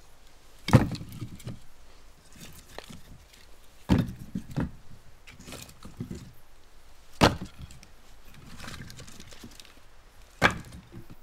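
Four sharp knocks on wood, about three seconds apart, each followed by softer scraping and rustling, as of something being struck or chopped by hand.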